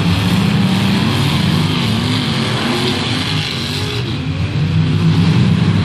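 Engines of several off-road derby cars revving and running hard, their pitches rising and falling over one another without a break.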